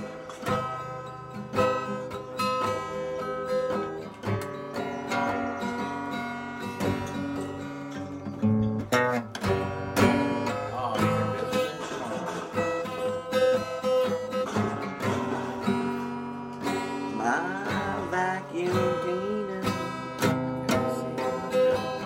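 Acoustic guitar being strummed, playing a run of chords.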